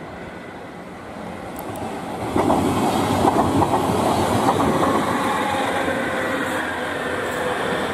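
Electric passenger train passing close by. About two and a half seconds in it gets loud all at once, with wheels clacking over the rail joints, then settles into a steady rolling rumble as the carriages go past.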